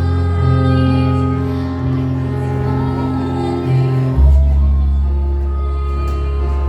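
Music with long held notes over a deep sustained bass, which moves to a new, lower note about four seconds in.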